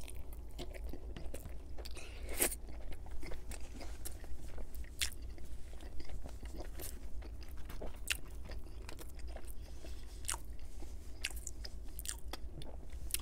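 Close-miked biting into and chewing a stacked double slice of pizza: a bite at the start, then steady chewing with irregular sharp crackly clicks from the crust and mouth.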